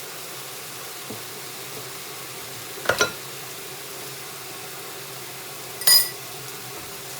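Marinated meat and vegetables sizzling steadily in a frying pan, with a quick double knock about three seconds in and a sharp, ringing clink of a utensil against cookware near six seconds.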